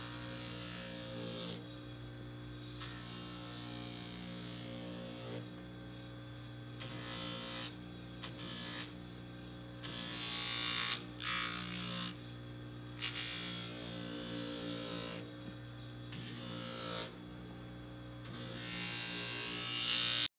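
Motor-driven edge trimmer on a cobbler's finishing machine, running with a steady hum. About ten times it breaks into a rasping hiss of a second or two as the edge of a boot's rubber sole is pressed against the spinning cutter head and then lifted away.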